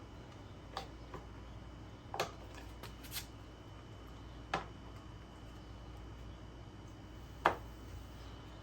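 Scattered sharp clicks and knocks of a part being worked into place on a lawn mower by hand, about seven in all, the sharpest one about seven and a half seconds in.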